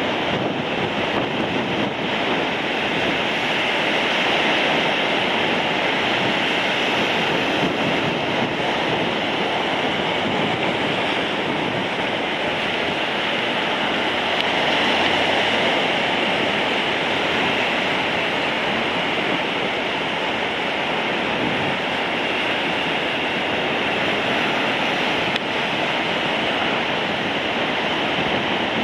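Heavy North Sea surf breaking and rushing in a steady roar of white water.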